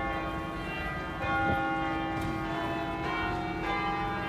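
Bells of Notre-Dame de Paris cathedral ringing. A fresh stroke comes about a second in and another near the end, each ringing on over the hum of the one before.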